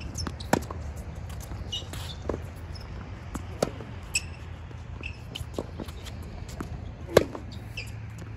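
Tennis ball struck back and forth with rackets during a baseline rally on a hard court: a string of sharp pops and bounces, the loudest a close forehand hit about seven seconds in. Brief high shoe squeaks on the court surface come in between, over a low steady rumble.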